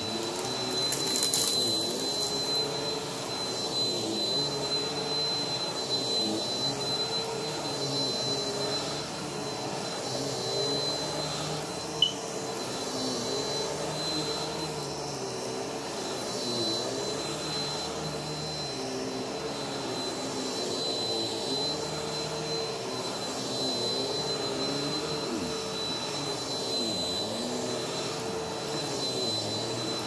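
Bagless upright vacuum cleaner running steadily on carpet, with a high steady whine over its motor hum and a tone that wavers slightly as it is pushed back and forth. A single sharp click about halfway through.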